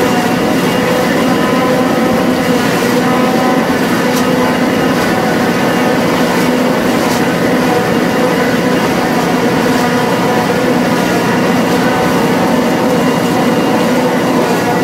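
Tractor engine and silage-making machinery running steadily under load, a constant hum with several held tones.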